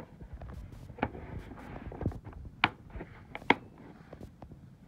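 Gearwrench socket set's hard black plastic case being handled and closed, with three sharp plastic clicks, the two loudest in the second half, as the lid and latches snap shut.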